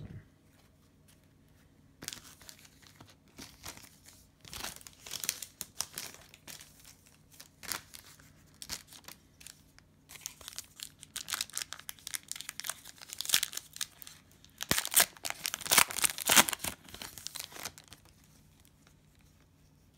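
Cellophane wrapper of a Panini Prizm basketball cello pack being torn open and crinkled by hand, in irregular bursts of crackling that are loudest about three quarters of the way through.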